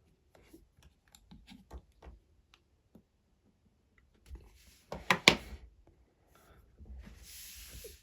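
Small plastic clicks and knocks of Lego pieces being handled, with a sharper clatter about five seconds in and a short rustle near the end.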